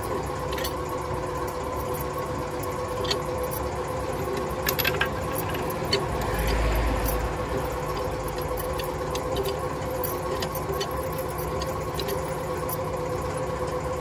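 Scattered metallic clinks of a wheel brace and extension bar on a truck wheel's nuts and hub, over a steady machine hum; a brief low thump with a hiss about six and a half seconds in.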